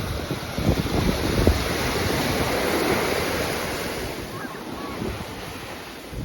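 Ocean surf breaking and washing up the beach, swelling to a peak about halfway through and then fading. Wind buffets the microphone with low rumbling gusts.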